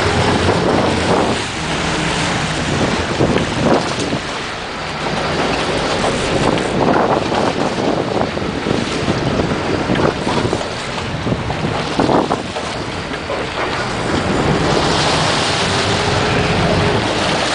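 Wind buffeting the microphone over a sport-fishing boat's engine running, with water churning and splashing along the hull.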